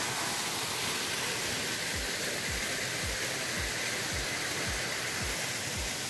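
Small waterfall splashing down stone steps into a pool, a steady rush of water. From about two seconds in, low thumps come about twice a second.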